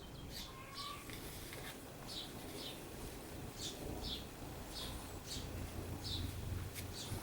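A small bird chirping repeatedly in the background: short, high, slightly falling chirps about two a second, over a faint low room hum.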